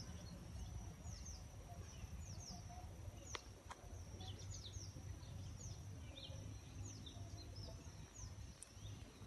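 Faint outdoor ambience: many short, quick falling bird chirps over a steady high-pitched whine and a low rumble, with two sharp clicks a little after three seconds in.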